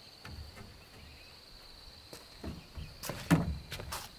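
A series of sharp knocks and clatters, as of timber being handled or struck, loudest about three seconds in. A steady high insect drone runs under them.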